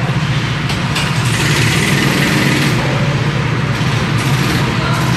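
Go-kart engines idling together with a steady low running note.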